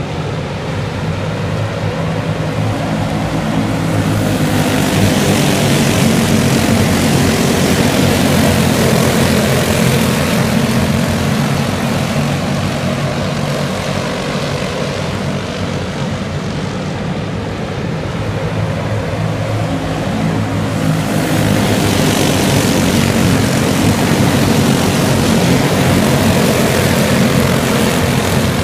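A pack of dirt-track racing go-karts with their small engines buzzing together in a dense drone. The sound swells twice as the field comes around past the stands.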